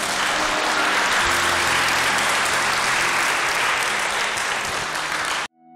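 Audience applauding, with soft background music faintly beneath; the applause cuts off suddenly near the end.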